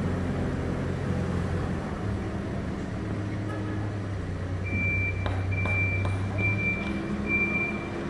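Hidromek 102 S backhoe loader's diesel engine running steadily. About halfway through its reversing alarm starts beeping, a high beep a little more than once a second.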